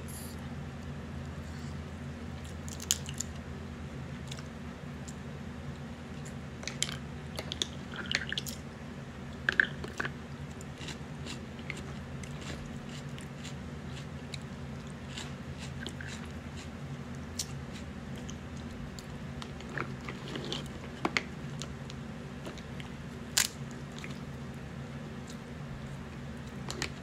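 Crab-leg shells being cracked and pulled apart by hand, with irregular sharp cracks and snaps and some chewing of the crab meat. A steady low hum runs underneath.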